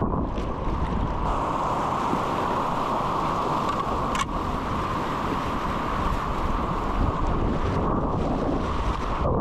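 Rushing whitewater churning around a canoe, with wind buffeting the action-camera microphone; a single sharp click about four seconds in.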